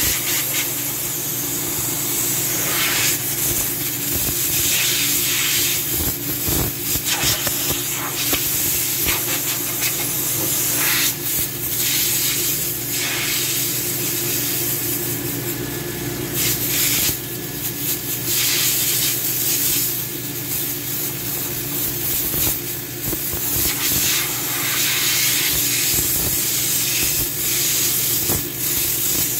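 Compressed-air blow gun blowing dust out of an air compressor's cabinet: repeated hissing blasts of air, some a second or two long, at irregular intervals over a steady low machine hum.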